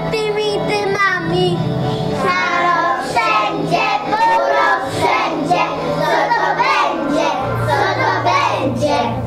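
Young children singing a song over a recorded instrumental backing track with steady bass notes.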